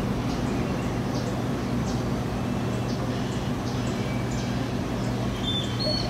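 A steady low hum, like a distant engine or machine, with small birds chirping over it and a few short whistled bird notes near the end.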